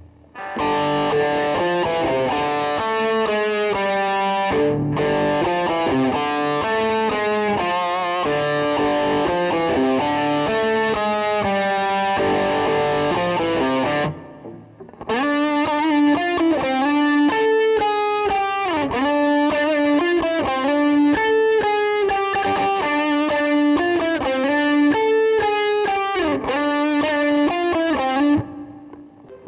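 Replica Gibson Les Paul Custom electric guitar played through distortion: a fast run of dense notes, a short break about halfway, then a lead line with string bends.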